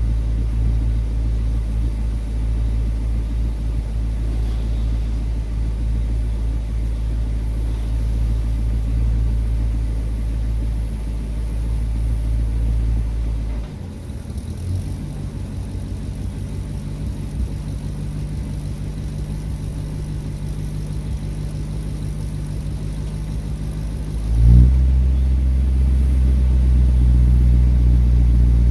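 A vehicle engine running at idle with a steady low hum; its pitch changes about 14 seconds in and it gets louder about 24 seconds in.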